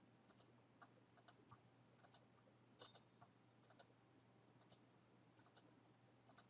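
Faint computer mouse clicks, unevenly spaced at a few a second, over near silence with a low steady hum.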